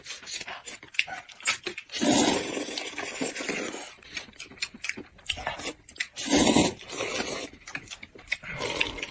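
People slurping and chewing sour-and-spicy sweet potato noodles, with long slurps about two seconds in and again past six seconds, and wet smacking in between.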